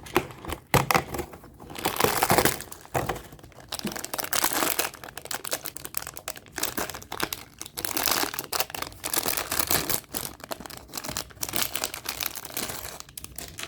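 Packaging crinkling and rustling, with many quick sharp crackles, as a fortune cookie is handled out of its advent calendar compartment and opened.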